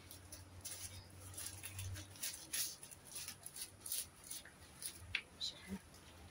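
Faint, irregular rustling and scratching from hands handling things close to the microphone, a quick series of short scratchy strokes.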